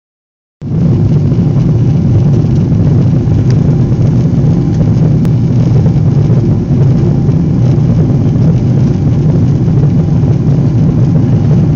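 Jet airliner cabin noise in flight: a loud, steady low drone of engines and rushing air. It starts abruptly about half a second in.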